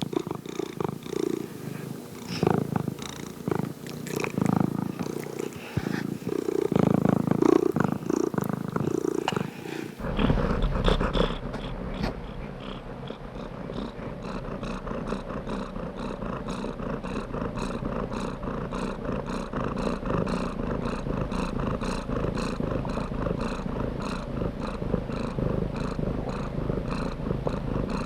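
Domestic cat purring close up, pulsing with each breath. About ten seconds in the sound changes abruptly to a steadier, more even purr with a deeper rumble.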